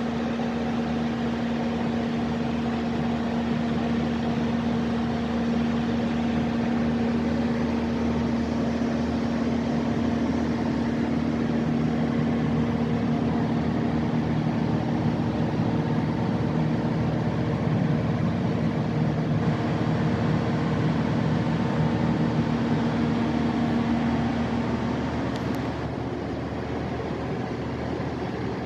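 Large Mitsubishi diesel engine of a Kohler generator set running at steady speed: a constant, even drone with a steady hum and no change in pitch.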